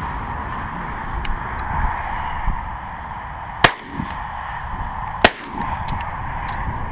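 Two shotgun shots about a second and a half apart.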